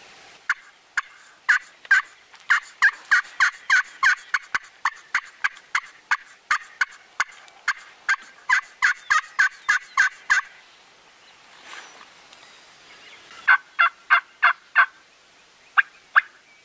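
Wild turkey hen yelping: a long run of short, loud yelps for about ten seconds, a pause, then a short run of about six yelps and two single yelps near the end.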